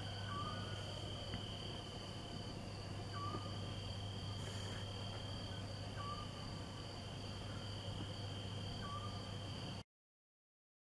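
Crickets trilling steadily, with a short chirping call repeating about every three seconds and a low steady hum underneath. The sound cuts off abruptly near the end.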